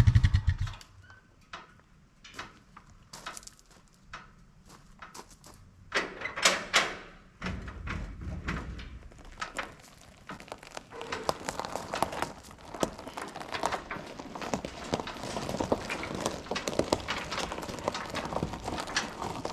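A small engine running with a fast, even beat cuts off within the first second. Scattered knocks and thunks follow, giving way to a steady patter of small clicks and rustles from about halfway through.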